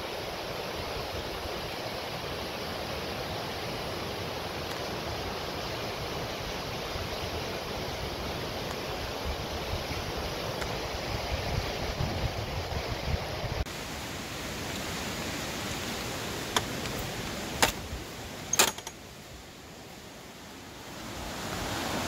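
River Ribble rushing over rocky rapids: a steady, even rush of fast water. Past the middle the sound changes. Three sharp clicks come about a second apart, then it drops quieter before building again near the end.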